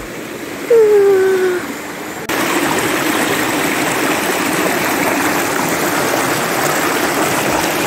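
Shallow rocky stream rushing and splashing over stones in a steady wash of water noise, which jumps suddenly louder a little over two seconds in.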